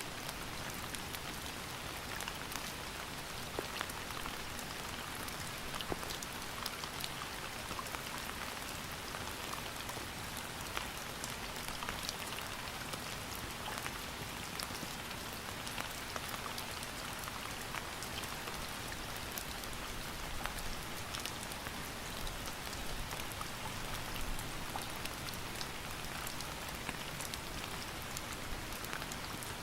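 Steady rain falling, a constant hiss with many individual drops pattering and ticking on a surface.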